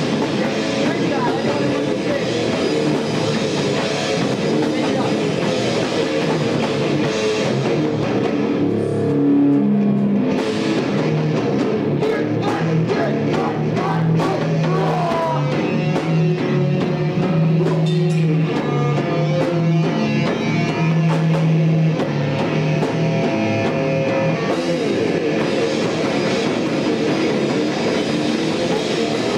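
Live rock band playing: electric guitars and drum kit. The sound thins out briefly about a third of the way in, then runs on with held low guitar notes.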